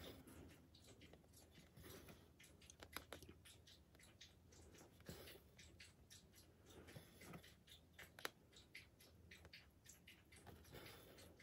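Faint, irregular scratching and small clicks of a needle and thread being pushed and pulled through stiff 18-count fiddler's Aida cross-stitch fabric, with fingers brushing the cloth.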